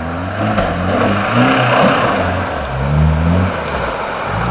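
Off-road 4x4's engine revving up and down several times under load, with a steady rushing noise over it.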